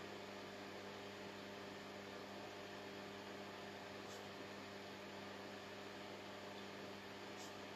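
Steady low electrical hum over a faint even hiss, with a couple of faint ticks about four seconds in and near the end.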